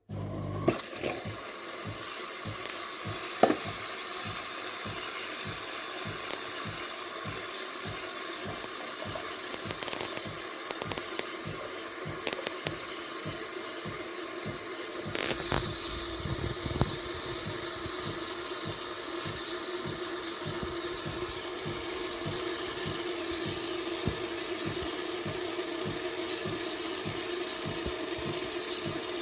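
De'Longhi Eletta Explore automatic coffee machine running its pump, with water flowing through it in a steady rush over a fast low pulsing. It starts suddenly, with a couple of sharp clicks in the first few seconds.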